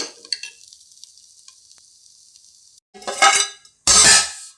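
Food sizzling faintly in a pan, then two loud scrapes of a spoon stirring in the metal pan, about three and four seconds in.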